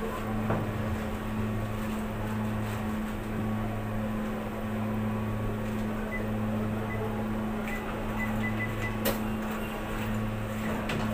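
Steady low electrical hum of a running machine, two tones, the lower one breaking off briefly every few seconds. A few light clicks come over it, with one sharp click about nine seconds in.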